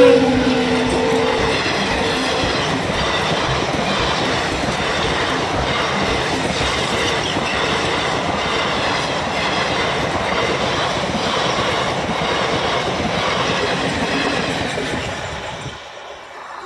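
Diesel-hauled passenger train passing close by at speed. A low tone sinks slightly in pitch in the first second and a half as the locomotive goes by. Then comes the steady rattle and clickety-clack of the sleeper coaches' wheels over the rail joints, fading away near the end as the last coach passes.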